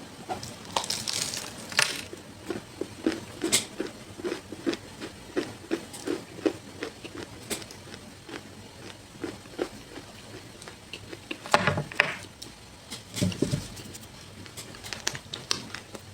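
Close-up eating sounds of a person biting and chewing a crunchy snow bar: a crisp bite about a second in, then rhythmic crackly chewing about twice a second, with two more heavy bites or crunches near the end.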